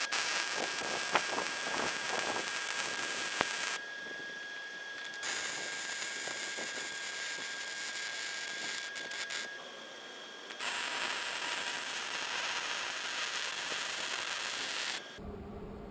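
MIG welding arc from a Hobart Handler 140 wire-feed welder laying beads on mild steel: a steady crackling sizzle in three runs of about four seconds each, with short pauses between.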